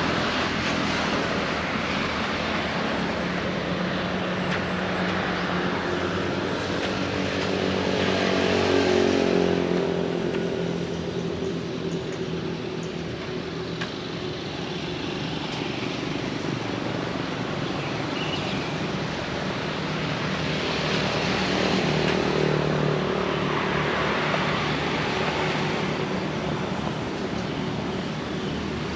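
Motor traffic passing on a nearby road: a steady rush with engine hum that swells and falls as vehicles go by, loudest about nine seconds in and again past twenty seconds.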